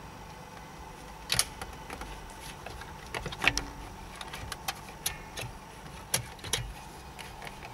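Sharp plastic clicks and knocks of a steering-wheel airbag module being handled, its connectors clipped in and the module pressed into the wheel hub, several scattered clicks with a couple of louder knocks.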